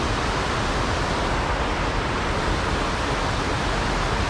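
Mountain stream rushing steadily over rocks and white-water rapids.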